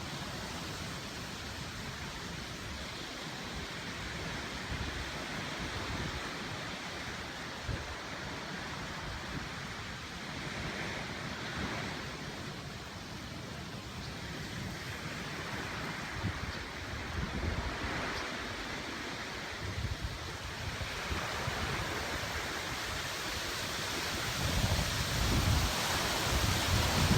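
Surf washing onto a beach, swelling and ebbing every several seconds, with wind buffeting the microphone as a low rumble that grows stronger near the end.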